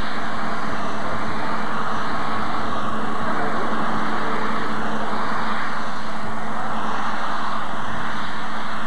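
Modified pulling tractor engine running steadily, held at idle at the start of the track.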